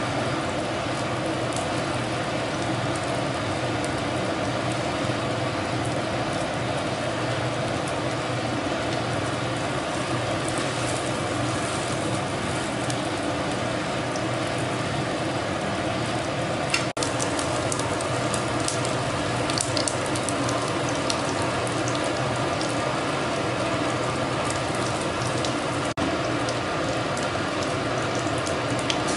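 Flat dumplings sizzling in oil in a frying pan, with small crackles and pops, over a steady mechanical hum.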